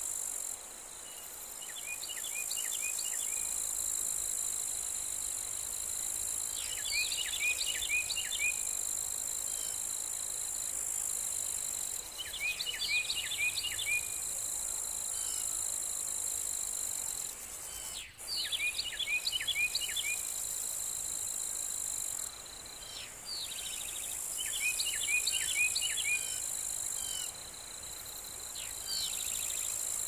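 Steady high-pitched shrilling of field insects, with a songbird singing a short phrase of quick descending notes about every five seconds.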